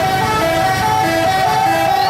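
Bus 'telolet' multi-tone musical horn playing a quick repeating tune of short stepped notes, about four or five a second, over the low rumble of the bus engine.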